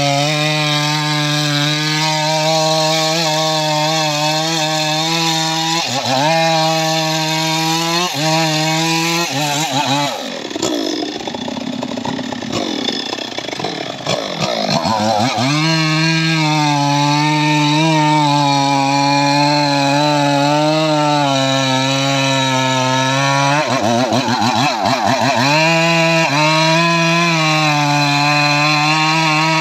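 Two-stroke petrol chainsaw running at high revs while cutting into the base of a standing tree trunk. The engine pitch stays steady under load, dipping briefly a few times. About ten seconds in, it drops to a lower, uneven running for several seconds, then climbs back to full revs.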